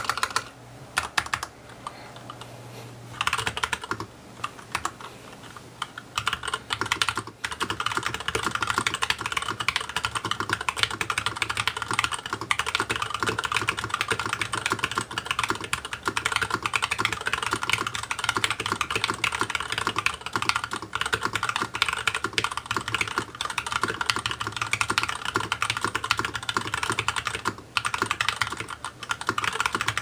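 Fast typing on a Varmilo VB87M mechanical keyboard with Gateron Clear linear switches: a dense, rapid stream of keystroke clicks. The keystrokes are sparser and lighter for the first several seconds, then run steady and fast, with a brief pause near the end.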